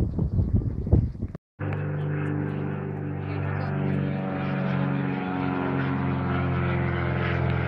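Gusty wind buffeting the microphone, then, after a brief cut, a single-engine high-wing propeller plane's engine droning steadily as it flies over.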